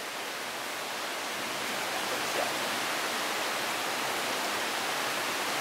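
Steady, even rushing noise in a forest, slowly growing louder, with no distinct events in it.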